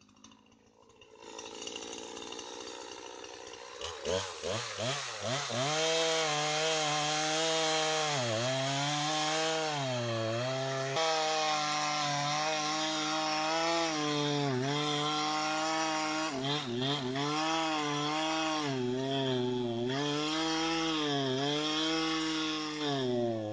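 Poulan Pro PR5020 50cc two-stroke chainsaw cutting through a large log. After a few quiet seconds at idle it goes to full throttle about four seconds in. The engine pitch then dips again and again as the chain bites into the wood, and picks back up each time.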